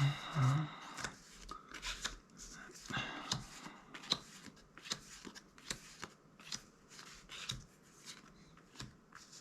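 Magic: The Gathering trading cards being flipped through one at a time, giving a string of light, sharp card clicks and slides, with a brief louder rustle at the very start.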